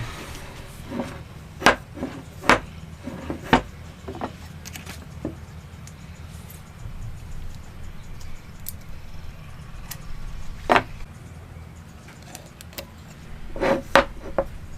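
Scattered sharp knocks and taps of woodworking hand tools on wood, five or six loud ones spread irregularly, over a steady low hum.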